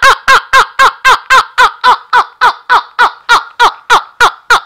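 A man laughing hard in a long unbroken run of loud 'ha' bursts, about four a second, each falling slightly in pitch, slowing a little toward the end.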